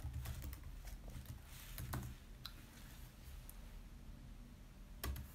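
Faint, scattered typing clicks and taps, a few separate strokes over a low steady hum.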